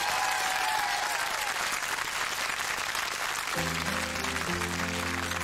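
Studio audience applauding; about three and a half seconds in, the band comes in under the clapping with sustained opening chords on keyboard and acoustic guitar.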